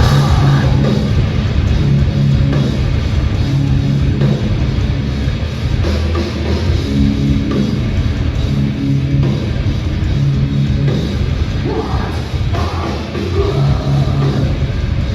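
Loud heavy metal played live by a band.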